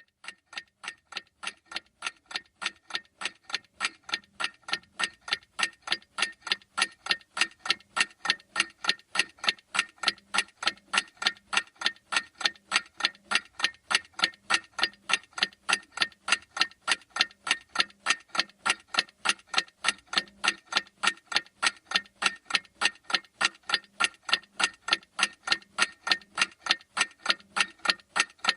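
Clock-ticking sound effect for a countdown timer: sharp, evenly spaced ticks, several a second, growing louder over the first few seconds and then holding a steady beat.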